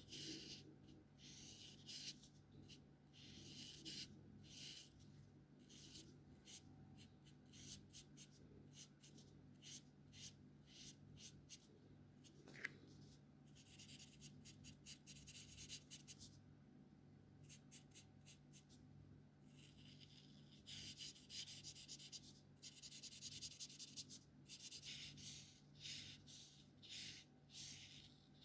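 Felt-tip alcohol markers stroking across paper: many quick, short strokes of faint hiss, with longer unbroken strokes of colouring near the end. A single sharp click about halfway through.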